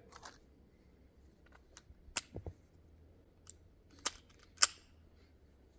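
Semi-automatic pistol being loaded: a few sharp metallic clicks and clacks as the magazine is seated and the slide is racked to chamber a round. The loudest clack comes near the end. The slide is stiff to rack over a full magazine.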